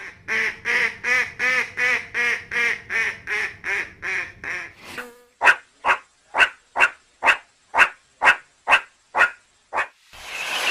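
An animal calling over and over: a quick run of about a dozen short, arching calls, then about ten sharper, clipped calls roughly two a second.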